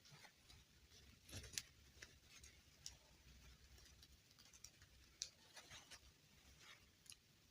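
Faint, scattered clicks and taps of small plastic doll parts or packaging being handled, with a few sharper clicks about a second and a half in and again near the middle.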